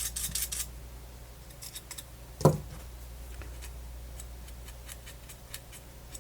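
Quick, even scratchy strokes of a small tool or brush scrubbing at the MiniDisc player's parts, stopping under a second in, then a single knock about two and a half seconds in and a few faint ticks.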